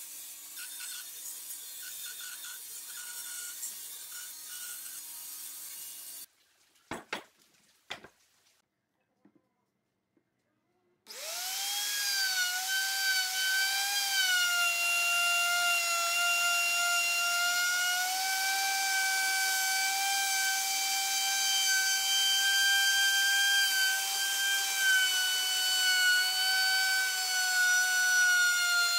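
A band saw cuts through a thick wooden board with a steady low hum. It breaks off abruptly, followed by a few seconds of near silence with a couple of sharp knocks. Then a DongCheng DMR02-12 wood router spins up and runs loudly with a steady high whine as it cuts along the edge of a round wooden top.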